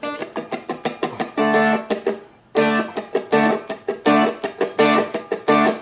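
Seagull Merlin strummed on open chords in a reggae-style upbeat rhythm, with short muted hits between the ringing chords. It stops briefly about two seconds in, then picks up again.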